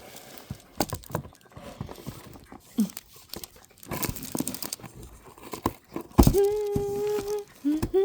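Packaging crinkling and tearing as a mail package is unpacked by hand, with scattered light clicks. About six seconds in, a voice starts singing a long held note, and a second one begins near the end.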